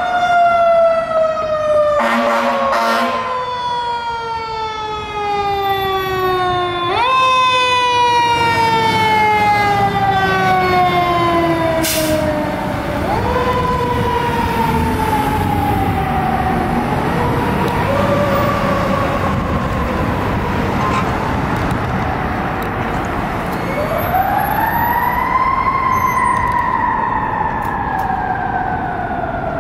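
Fire engine siren wailing: it repeatedly rises quickly in pitch, then falls away slowly over several seconds, about five times. A short blast of air horn sounds about two seconds in, with truck engine and traffic noise underneath.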